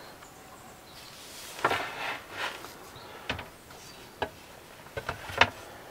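Wooden fold-out worktop board being lifted and fitted onto its cabinet: several separate wooden knocks and clunks.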